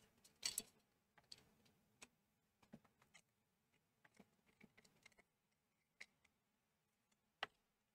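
Scattered small clicks and taps of the plastic parts of a Hakko FR301 desoldering gun being handled and fitted together on a workbench: a cluster of louder clicks in the first second, then faint irregular taps, and one sharper click near the end.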